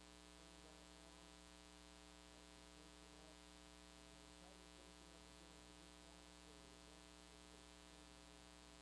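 Near silence: a faint, steady electrical hum with a stack of overtones, the mains hum of the recording.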